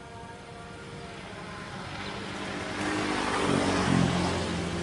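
A motor vehicle's engine getting steadily louder as it approaches, loudest about four seconds in.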